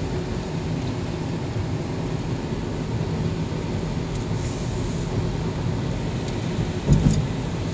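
Steady low rumble of a car driving on a rain-soaked road, heard from inside the cabin, with windscreen wipers running. One louder low thump comes near the end.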